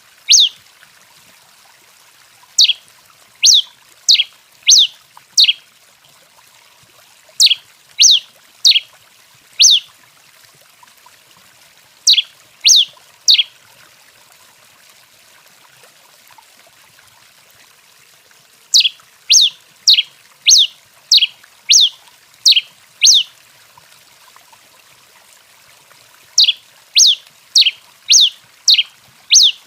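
Tico-tico-rei (Coryphospingus finch) calling: sharp, quick notes that slur downward, given in runs of three to eight with pauses of a few seconds between runs.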